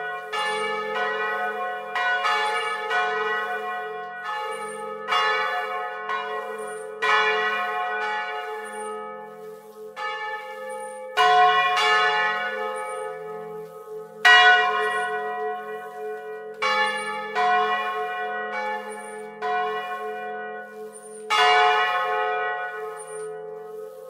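Two bronze church bells, one cast in 1772, swinging on their original yokes and clappers and ringing together. Their strokes fall roughly once a second, some louder than others, each leaving a long ringing hum, heard close up inside the belfry.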